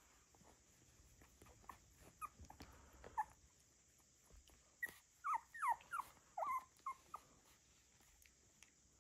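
Young cockapoo puppies squeaking: a few short, thin squeaks about two to three seconds in, then a quick run of about eight higher squeaks between five and seven seconds in.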